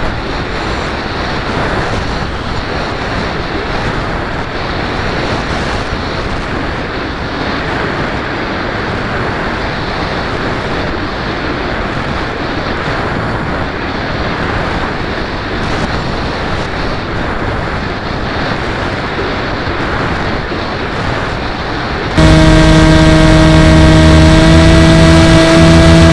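Wind rushing over an FPV aircraft's onboard camera in flight, a steady rough noise. About 22 seconds in it cuts abruptly to a much louder, steady whine of the aircraft's electric motor and propeller, its pitch dipping slightly near the end.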